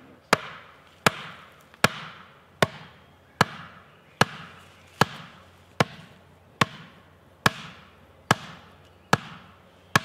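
Steady, evenly paced hammer blows on a wooden stake, about one every 0.8 seconds, thirteen in all, each a sharp knock with a short ringing tail. The stake is being driven into the ground to make a hole for a longhouse pole.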